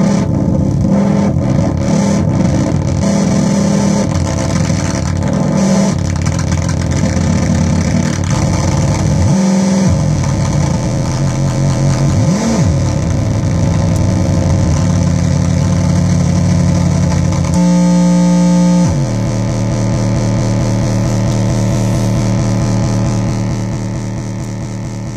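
Metsään Dirty Drone Anarchy synth, three interacting triangle-wave oscillators, putting out a loud, distorted, buzzing drone that changes pitch and texture as the knobs and switches are worked. There is a brief pitch sweep around the middle and a short steadier, clearer tone a little before the end, and the drone fades out near the end. It is heard through nearby speakers via a phone's microphone.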